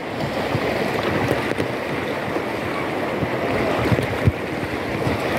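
Rushing river water over rocky rapids, close and steady, with a few dull thumps in the second half.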